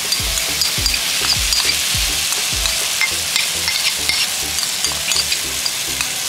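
Curry paste frying and sizzling in hot oil in a stainless steel pot as it is scraped in from a bowl with a spoon. A low, regular beat of background music runs underneath.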